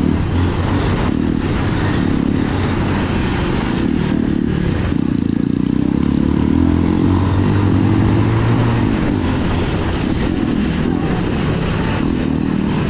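Motorcycle engine running steadily as the bike is ridden over a gravel dirt track; the engine note rises slightly about seven seconds in.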